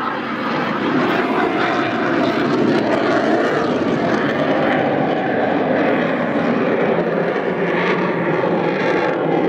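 Jet aircraft on afterburner, a loud, dense jet noise that swells quickly in the first second and then holds steady.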